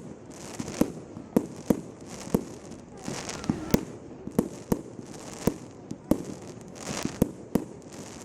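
Firework display: a dozen or so sharp bangs of aerial shells going off at irregular intervals, about one or two a second, over a steady background hiss.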